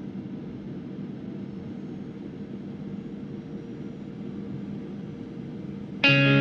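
Steady jet engine and airflow drone inside a Boeing 737 airliner's cabin on its approach, with a low steady hum. Guitar music cuts in suddenly at the very end.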